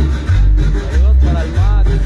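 Latin dance music played loud over a big sonidero sound system, with a heavy bass note about twice a second. A melody line slides up and down in pitch around the middle.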